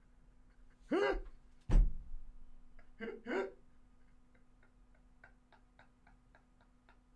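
Short wordless vocal outbursts from a person, with a loud thump just under two seconds in. After that comes a run of faint light ticks, about four a second, that fade away.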